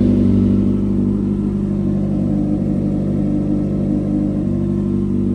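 Yamaha XJ6's 600 cc inline-four engine idling steadily, running again after a new battery cured its no-start fault.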